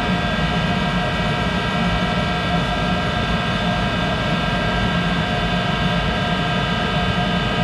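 Monarch 10EE lathe running with its spindle and four-jaw chuck turning, a steady whine of many tones over a low hum. The machine runs pretty noisy, which the owner thinks comes from a bad bearing somewhere in it.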